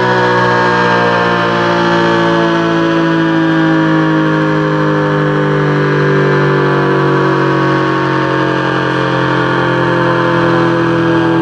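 ACA P-50 tornado siren sounding the steady alert signal: one loud, sustained tone whose pitch sags slowly over the seconds.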